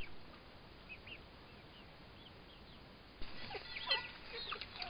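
Young poultry peeping: scattered faint high peeps, turning louder and busier about three seconds in.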